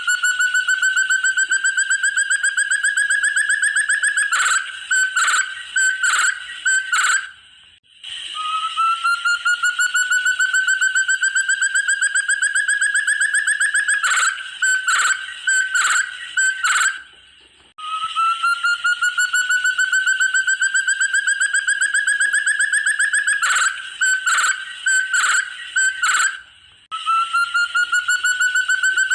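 Forest partridge (puyuh hutan) calling in a repeating cycle: a fast trill that rises slowly in pitch for about five seconds, then a handful of separate loud notes, then a short pause. The cycle comes round three times.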